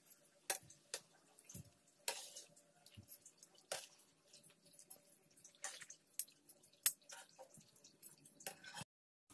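Hot frying oil dripping back into a kadhai from a wire-mesh strainer full of freshly fried aloo bhujia sev, with scattered light drips and metal taps of the spoon against the strainer.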